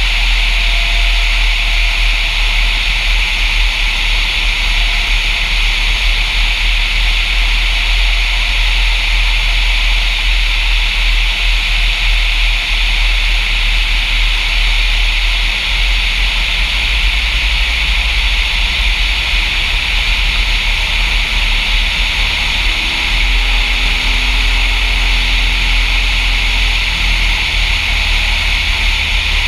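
Steady rush of airflow over a wing-mounted camera on a Diamond DA-40 single-engine light aircraft in flight on final approach, with the engine and propeller droning underneath. Faint steady tones join in about two-thirds of the way through.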